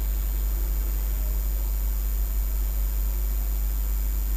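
Steady low electrical mains hum with an even hiss and faint, steady high-pitched whines: the background noise of the recording microphone.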